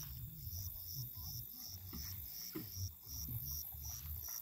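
Cricket chirping steadily at about three high-pitched chirps a second, over an irregular low rumble.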